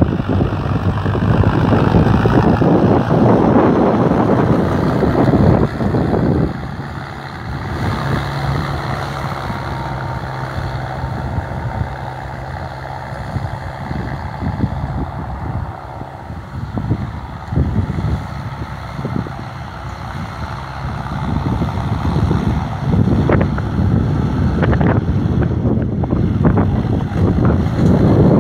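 Mahindra Arjun Novo tractor's diesel engine running steadily while working a harrow, louder for the first few seconds, dropping, then rising again near the end.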